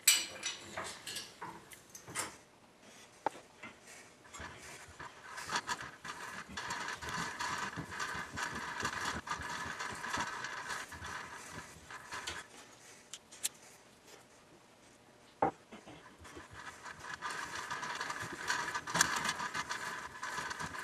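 Hand-tapping threads into a metal part held in a bench vise, with a tap and tap wrench, sped up four times: two stretches of quick, fast-ticking scraping from the cutting tap, with a few sharp knocks between them.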